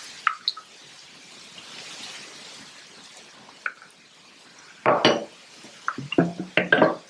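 Kitchen handling sounds: a couple of light clicks just after the start, then a run of short knocks and clinks from about five seconds in, as the SodaStream bottle of freshly shaken smoothie and a drinking vessel are handled.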